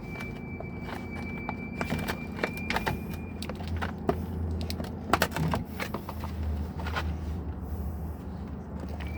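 Scattered plastic clicks and rattles from handling the power window master switch and unclipping its tabbed wiring connectors, over a steady low hum. A thin high tone runs through about the first three seconds.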